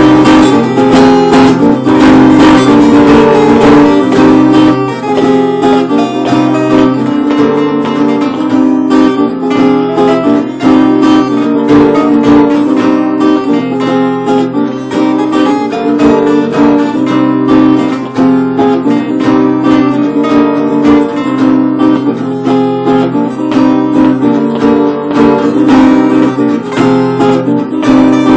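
Acoustic guitar playing a Spanish-style tune with a quick run of plucked notes over lower bass notes.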